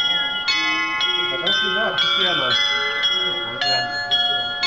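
Tower glockenspiel of tuned hanging bells playing a tune, a new note struck about every half second and each left ringing, with people talking underneath.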